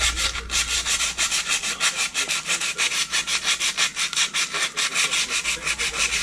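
Sandpaper rubbed by hand against the friction lining of a scooter's centrifugal clutch shoes, in quick, even back-and-forth strokes, several a second, scuffing and cleaning the pad surface; the strokes stop abruptly at the end.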